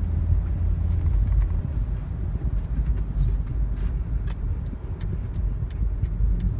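Car cabin noise while driving: a steady low rumble of engine and tyres on the road, with a few faint ticks in the second half.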